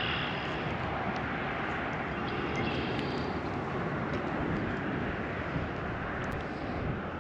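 Steady outdoor background rumble and hiss, even in level, with a few faint short high tones about two and a half to three and a half seconds in.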